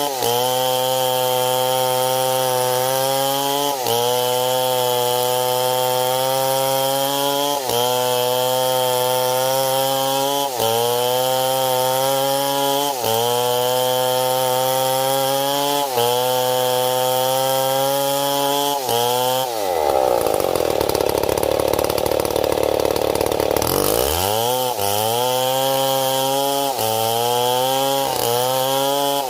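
Stihl MS 070 two-stroke chainsaw cutting at high revs; its pitch dips and recovers about every three seconds as the chain bites into the wood. About two-thirds of the way through, the engine drops to a low idle for about four seconds under a louder rushing noise, then revs back up and carries on cutting.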